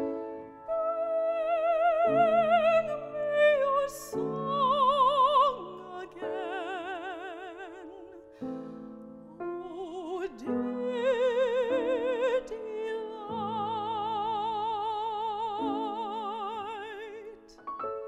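A woman singing in classical operatic style with a wide vibrato, over piano accompaniment. Her last phrase ends on a long held high note that is released just before the end.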